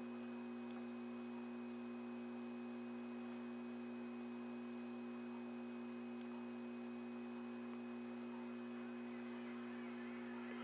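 Steady mains hum from an Admiral 24A12 television (20A1 chassis) warming up after power-on, before picture or sound comes through; the set warms up slowly through its added CL80 inrush-limiting thermistor.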